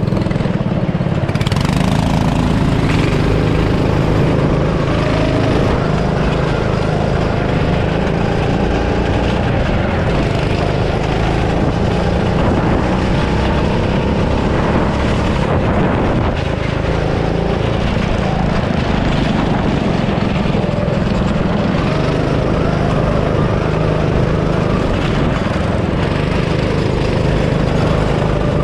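Go-kart's small engine running hard, heard from on board the kart, its pitch dipping and rising a little now and then with the throttle through the corners.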